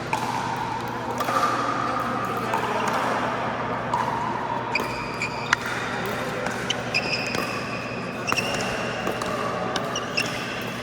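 Pickleball rally on an indoor court: hard paddles popping against the plastic ball in irregular sharp cracks, with a few high squeaks in the second half.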